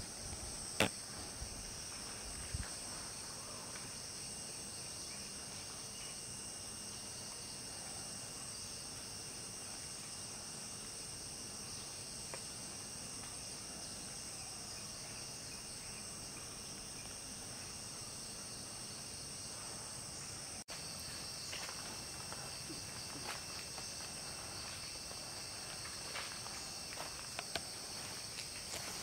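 Steady, high-pitched chorus of forest insects droning without a break. A sharp click comes about a second in, and small scattered crackles come in the second half.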